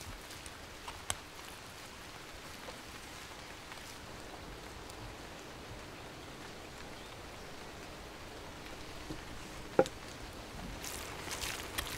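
Cooked meat being pulled apart by hand on a wooden board over a steady outdoor hiss, with a few faint clicks, one sharp knock about ten seconds in, and soft crackly tearing near the end.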